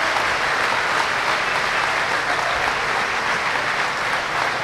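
A large crowd applauding at length, a dense, steady clapping that does not let up.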